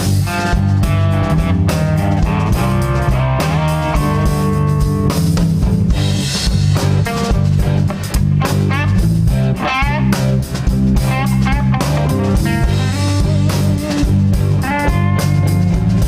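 Live rock band: an electric guitar solo, the lead line bending notes, over bass guitar and drum kit.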